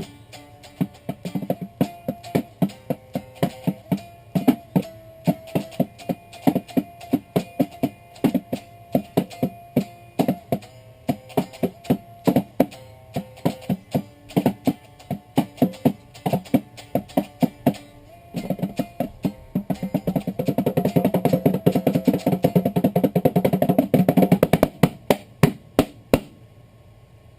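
Music: a plucked guitar playing a rhythmic pattern of short notes with light percussion, turning to rapid, dense strumming about two-thirds of the way through and stopping shortly before the end.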